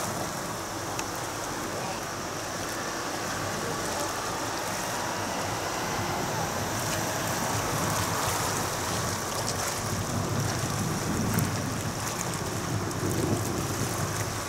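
Waterfront ambience: a steady wash of wind and water noise, with gusts of wind hitting the microphone in the later part.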